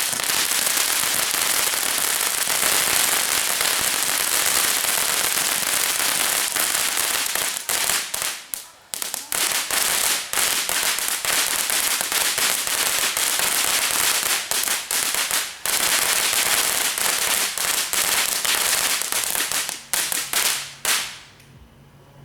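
Consumer fireworks crackling in a rapid, unbroken stream of tiny pops, loud and dense, with a few short lulls; it breaks into last scattered pops and stops about a second before the end.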